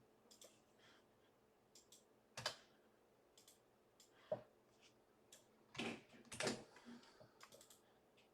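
Quiet, scattered clicks and rustling handling noises, a few louder ones in the second half, over near silence.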